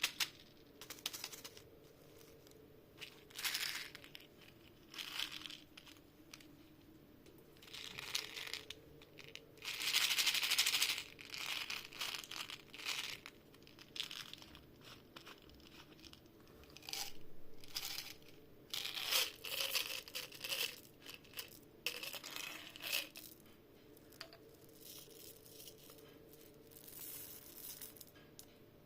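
Close-miked crinkling and crunching of M&M's candy-coated chocolates, in irregular short bursts with quiet gaps between them. The longest and loudest burst comes about ten seconds in.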